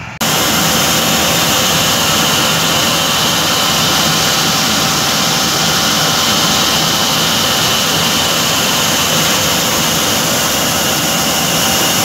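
Swaraj 8100 combine harvester running close up, a loud, steady mechanical drone with a steady high whine, which starts suddenly a moment in.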